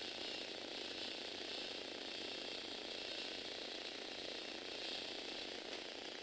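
Electric motor and plastic gear train of a motorised Lego Technic bike whirring steadily as it drives along.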